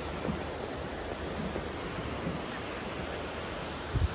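Steady rushing noise of wind and the river far below. A couple of low buffeting thumps from wind on the microphone come near the end.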